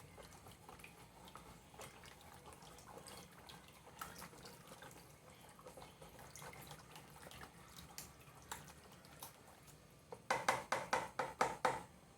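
A liquid bread-dough mixture of egg, sugar, oil, milk, water and yeast is being stirred by hand in a bowl. It gives faint sloshing and scattered light clicks, then a quick run of about eight sharp strokes against the bowl near the end, roughly five a second.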